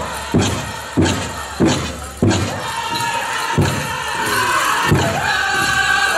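Powwow drum group playing a chicken dance song: a big bass drum struck in a steady beat about one and a half times a second, with high group singing over it. About two seconds in, the drumbeats thin out to a few single strokes while the singing carries on.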